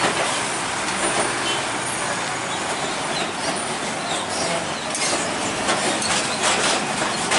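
Heavily loaded cargo trucks driving over a railway level crossing: steady engine and tyre noise, with a run of knocks and clatter from about halfway through as the wheels cross the rails.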